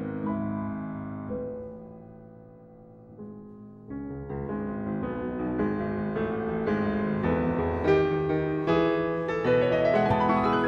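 Background piano music: a phrase dies away, then a new phrase of piano chords starts about four seconds in, with a rising run of notes near the end.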